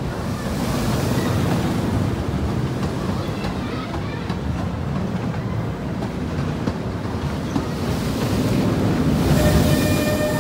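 Roller coaster train rumbling along its steel track, swelling louder twice as it passes, with a short tone sounding near the end.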